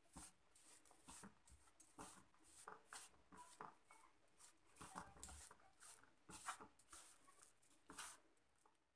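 Faint, irregular soft rustling and light ticks of fingers mixing flour with water in a bowl to form dough.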